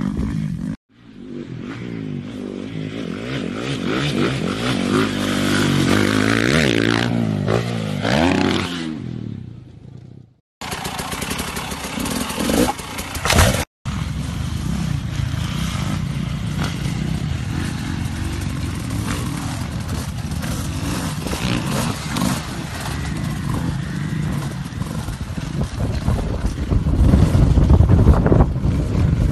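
Dirt bike engines revving up and down as riders ride a motocross track, in three short clips that cut off abruptly one into the next. The first clip has clear rises and falls in engine pitch; the last is a rougher, steadier running sound.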